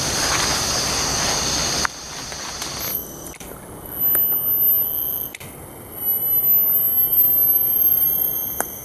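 Forest insects calling. A steady high hiss runs until a cut about two seconds in; then several steady, high-pitched whining tones sound together, drop out briefly midway and start again.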